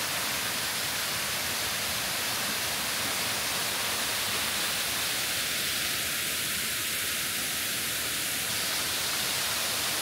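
Steady, even rush of falling water from a waterfall.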